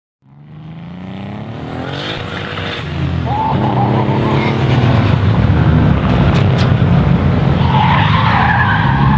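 A drift car's engine revving hard as it slides through a corner, with tyres squealing: first about three seconds in, then more strongly near the end. The sound fades in from silence at the start and grows louder, rising in pitch over the first few seconds.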